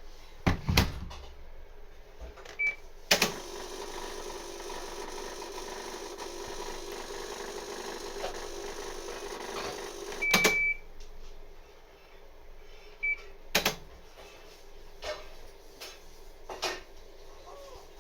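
Panasonic NA-VH300L drum washer-dryer running with the abnormal noise it is being recorded for. Sharp clunks and knocks come with a steady motor hum that runs for about seven seconds and then stops, along with a few short electronic beeps.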